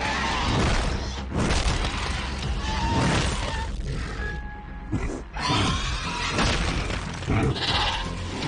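Animated-series soundtrack: dramatic music mixed with a run of loud crashing and smashing effects, with a brief lull about halfway through.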